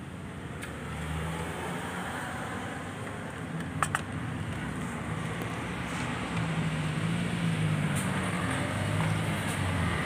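Motor-vehicle engine rumble in the background, getting a little louder about a second in and again around six seconds. A faint click comes early and a short double click about four seconds in.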